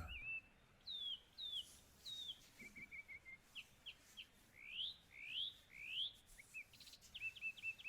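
Birds singing: a few falling whistled chirps, a short quick trill, three rising slurred notes, then a run of quick repeated chirps near the end.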